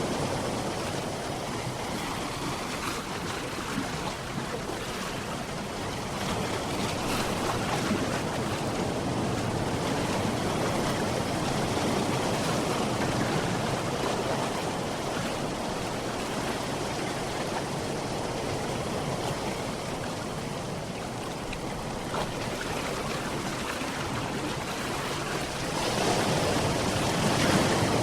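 Sea waves washing in a steady rushing noise that swells and eases slowly, building to a louder surge near the end.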